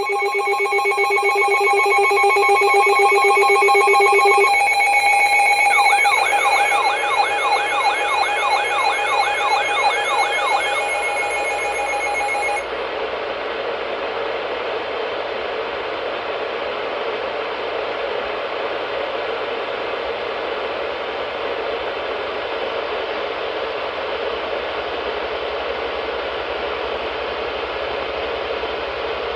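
Electronic alert tones: several steady tones sounding together, joined about six seconds in by a fast warbling sweep that rises and falls about twice a second. All of them cut off abruptly about twelve seconds in, leaving a steady hiss of radio static from the weather radio receiver.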